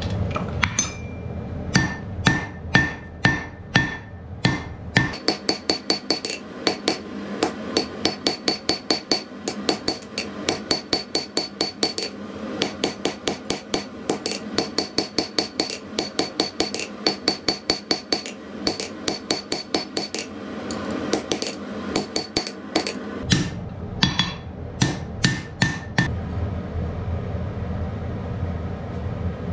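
Blacksmith's hand hammer striking a red-hot steel bar on an anvil in steady runs of blows, the anvil ringing clearly with each strike. The blows come about two a second at first, quicken to about three a second for most of the stretch, then slow and thin out near the end.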